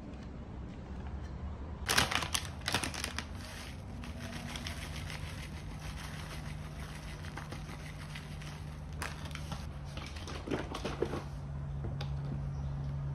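Plastic bag of oats crinkling as it is handled, then oats pouring out of it into a bowl with a dense, fine crackle. There are a few louder rustles of the bag near the end.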